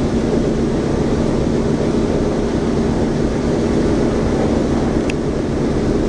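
Boeing B-17's Wright R-1820 Cyclone radial engines running, a steady low drone heard from inside the fuselage.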